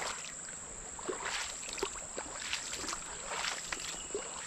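Footsteps wading through a shallow, fast-flowing rocky creek, the water sloshing and splashing with each step, about two steps a second.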